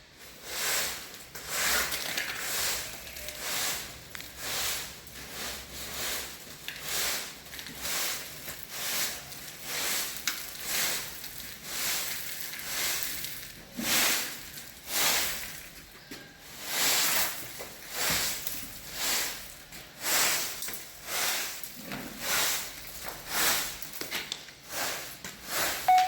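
A broom sweeping a stable floor in repeated strokes, slightly more than one a second, each a short scratchy swish.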